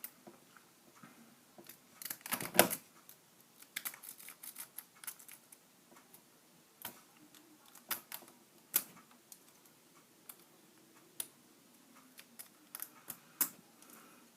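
A rake pick working inside a weathered Master Lock padlock: irregular small metallic clicks and rattles of the pick against the pins. The loudest is a quick flurry of clicks about two seconds in. The lock does not open.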